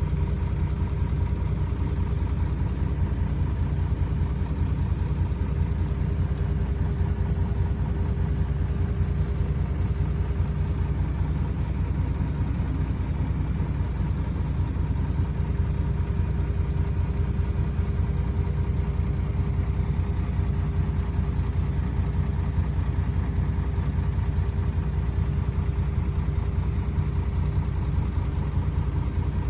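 Dump truck's diesel engine running at a steady idle, an even low drone with a constant hum and no revving.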